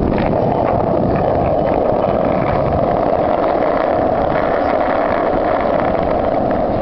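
Skateboard wheels rolling steadily over rough concrete, a continuous rumble from a board carrying the person filming.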